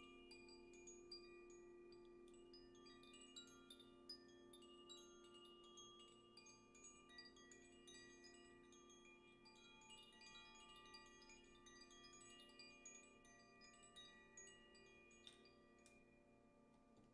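A hand-held cylindrical wind chime swung gently, its clapper striking a quick, irregular tumble of bright, high tinkling notes. Under it, a crystal singing bowl keeps up a steady low ringing that slowly fades. The tinkling thins out near the end.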